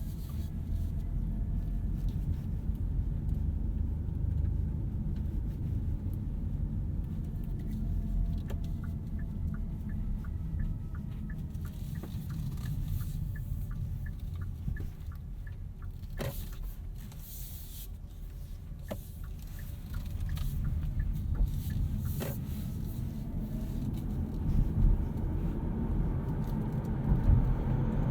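Cabin noise of a Hyundai Kona Electric on the move: a steady low road and tyre rumble with no engine note, and a faint electric-motor whine that rises and falls in pitch. A run of light, evenly spaced ticks comes in about the middle, and a few sharp clicks come later.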